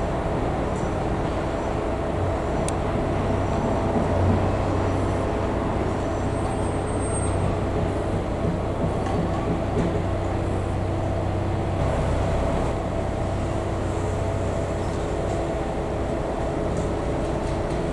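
Yard switcher (shunting locomotive) running with a steady hum while hauling stored locomotives through the depot yard.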